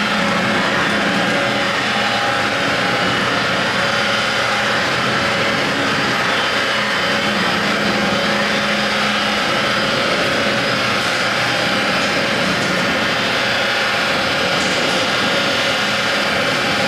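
FPEC vacuum paddle blender running on a test run: its electric drive motor and chain drive give a steady mechanical whir with several held tones.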